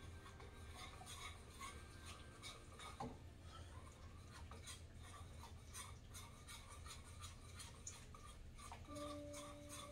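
Faint, irregular scraping and rubbing of a whisk stirring a thickening flour-based sauce in a pot.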